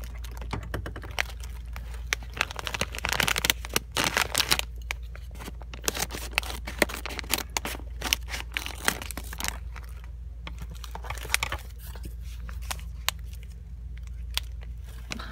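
Crinkly plastic sweets packet being handled, torn and opened: dense, irregular crackling and tearing, busiest in the first few seconds and again in the middle, over a steady low hum.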